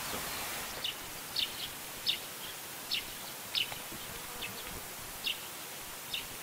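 A small bird chirping: about ten short, high chirps, each sliding slightly downward, spaced irregularly half a second to a second apart over a steady outdoor hiss.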